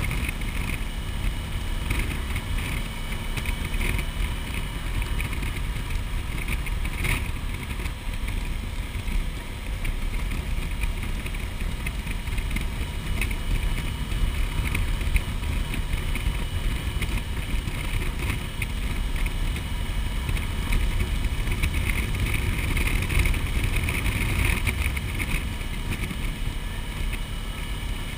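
Motorcycle engine running steadily at road speed, mixed with wind rushing over the microphone.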